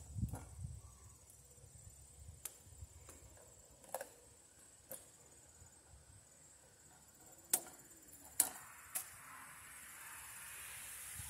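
A handful of sharp, isolated metallic clicks from hand tools, lineman's pliers and wire strippers, being handled while wires are worked at an outlet box. The loudest two come about three quarters of the way through. A faint steady high insect drone sits underneath, and a soft rustling hiss builds near the end.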